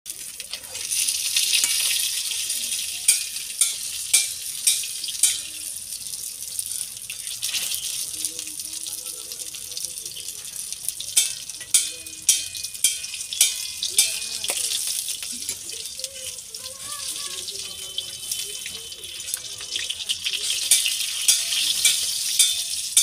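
Fish pieces sizzling in hot oil in a metal wok, a steady hiss, with a steel spatula clinking and scraping against the pan in several runs of sharp clicks as the pieces are turned and lifted out.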